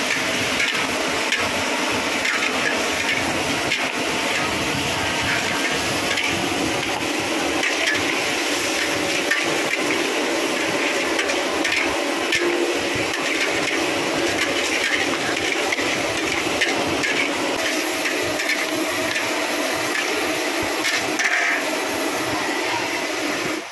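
Two metal spatulas scraping and clanking against a large steel wok as greens and pork are stir-fried, with many quick knocks over a steady hiss of frying.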